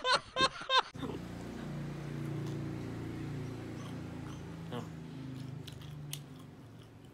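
A brief burst of men laughing, then a man chewing fried dough while humming a long, low, steady "mmm", with a few soft mouth clicks.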